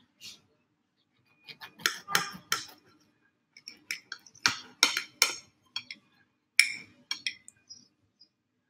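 A table knife clinking and scraping against a glass plate as a thick pancake is cut open: an irregular run of sharp clinks and taps that begins about a second and a half in and dies away near the end.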